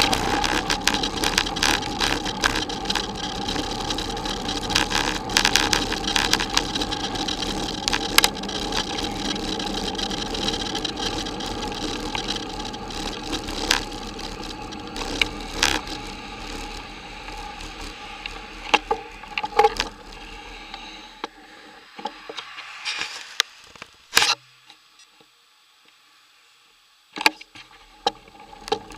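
Bicycle rolling over a gravel track, with tyre crunch and a steady clattering rattle from the bike and its mounted camera, full of small knocks. The rattle dies away as the bike slows and stops, goes almost quiet for a couple of seconds, and then a few sharp knocks come near the end.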